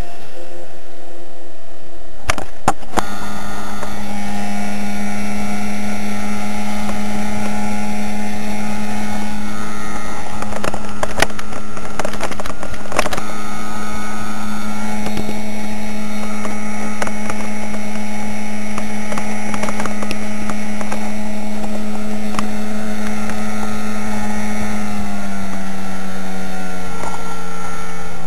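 Motorboat engine opening up about two seconds in, then running at a high, steady pitch, with a few sharp knocks along the way. Near the end the pitch eases down and dips briefly.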